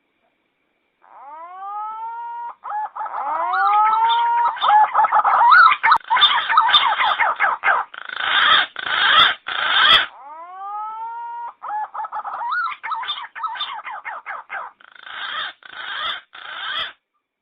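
Green pigeon (punai) calls used as a hunting lure: whistled notes gliding upward that build into a fast, jumbled run of warbling calls, in two phrases, the second starting about ten seconds in.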